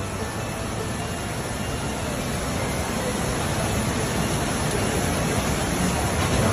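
A steady rushing noise that grows slowly louder and stops suddenly just after the end.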